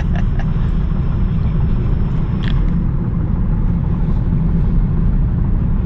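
Steady low rumble of road and engine noise inside a 2016 Chevy Cruze cabin cruising at about 64 mph, the car holding its speed on cruise control.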